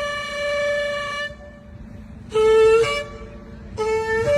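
Shofar blasts: a long held note that breaks off about a second in, then two short blasts, each jumping from a lower note up to a higher one.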